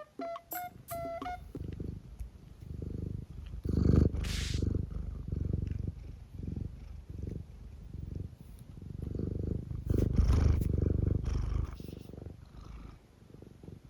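Minuet cat purring in a steady rhythm of low pulses. There is a brief rustle about four seconds in and more rustling around ten seconds in.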